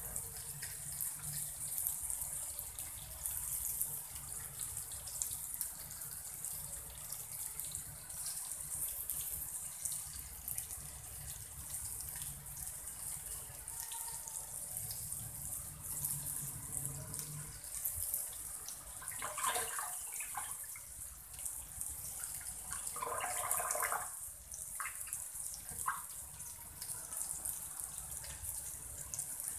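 Pieces of surmai (kingfish) coated in rava and rice flour sizzling steadily in oil on a black iron tawa, a continuous high hiss. A few brief louder sounds break in about two-thirds of the way through.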